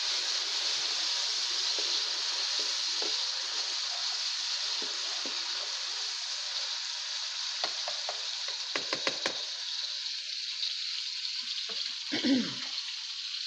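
Tomato, onion, green chilli and ginger sizzling in hot oil in a non-stick wok, a steady hiss: the tadka frying. A spatula stirs through it, with a quick run of clicks against the pan about eight or nine seconds in and a short clatter near the end.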